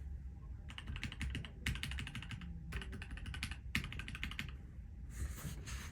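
Typing on an NK87 Entry Edition mechanical keyboard with EMT switches and GMK Hyperfuse keycaps: quick runs of keystrokes in about four bursts with short pauses between them, a longer pause, then a final short flurry near the end.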